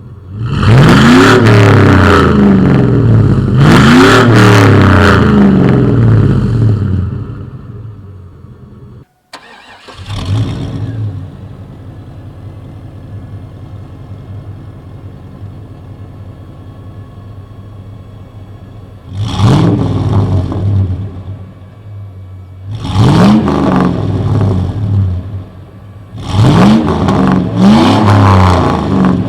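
A 1999 Chevy Silverado's 5.3L LM7 V8, running with gutted catalytic converters and a Cherry Bomb muffler, is revved several times in quick blips that rise and fall in pitch. In the middle it settles into a steady, quieter idle for about ten seconds, after a brief break in the sound.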